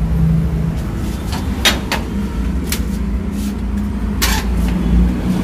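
Metal door latch and slide bolt being worked open by hand, giving several sharp clicks and clacks in the middle of the clip. A steady low engine rumble runs underneath.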